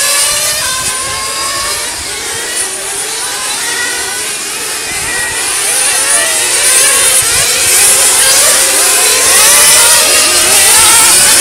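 Several 1/8-scale nitro RC cars' small two-stroke glow engines, screaming in a pack, their pitches rising and falling together as the cars accelerate and brake through the corners. The sound grows louder about halfway through as the cars come close.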